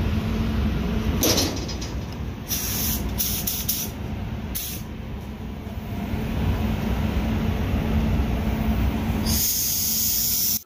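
Spray booth air handling running with a steady low rumble and hum, while a paint spray gun hisses in short bursts: one about a second in, a quick run of several between two and four seconds, another just before five seconds, and a longer, stronger spray near the end that stops suddenly.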